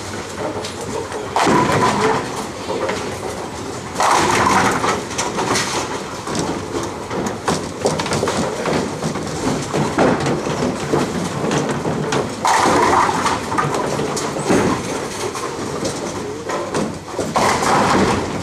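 Ten-pin bowling lanes: bowling balls rolling down the wooden lanes with a steady rumble, and pins clattering as they are struck, four louder crashes, about a second and a half in, at four seconds, at twelve and a half seconds, and near the end.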